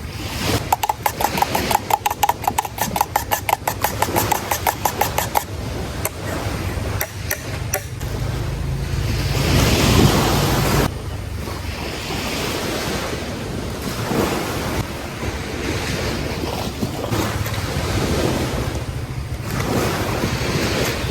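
Waves washing onto a beach, with wind on the microphone; the surf swells and ebbs. During the first five seconds a rapid, even clicking of about six a second sits over it.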